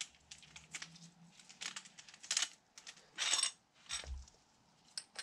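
Light metallic clicks and rattles as a threaded-rod bearing press is spun loose and taken apart from a bicycle front hub after seating its new bearings, with a low thump about four seconds in.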